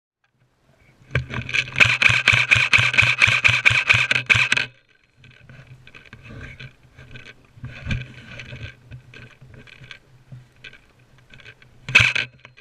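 Airsoft gun firing a rapid burst of shots lasting about three and a half seconds over a steady low hum. Quieter scattered clicks follow, and one more short burst comes near the end.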